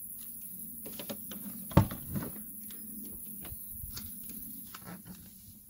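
A car door being opened and someone climbing in: a string of clicks and knocks, with one loud thump just under two seconds in.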